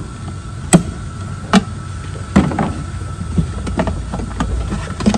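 Sharp clicks and knocks of hand work on a snowmobile's plastic air box and its throttle-body boot clamps, as a screwdriver slides the clamps and the box is shifted by hand. The loudest knocks come about a second apart near the start, with smaller clicks after, over a steady low hum.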